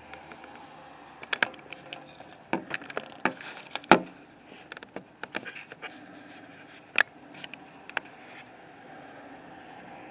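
A run of irregular sharp clicks and knocks, close and loud against a faint steady background, thickest between about one and five seconds in, with a few more near seven and eight seconds in.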